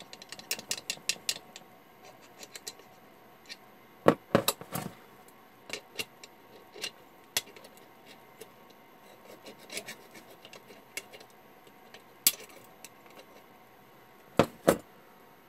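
Handling noise: irregular small clicks, taps and rubbing, with a few sharper knocks about four seconds in and two more close together near the end.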